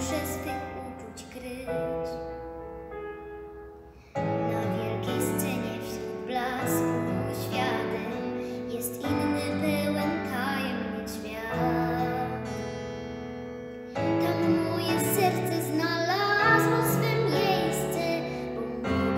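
A young girl singing a song with long held notes over instrumental accompaniment. The music grows louder about four seconds in and again about fourteen seconds in.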